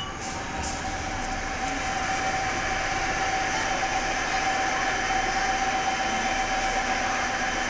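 Steady train noise heard inside a Prague metro car of the 81-71 type, standing at an underground platform. It builds up over the first couple of seconds into an even hum with a thin steady tone.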